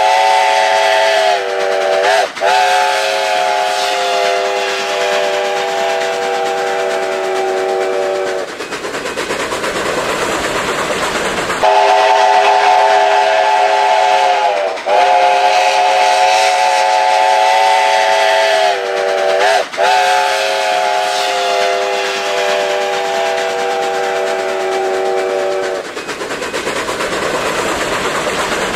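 Steam locomotive chime whistle blowing two long multi-note blasts, about eight and fourteen seconds long, each with a couple of brief wavers in pitch. A few seconds of steam hiss fill the gap between them.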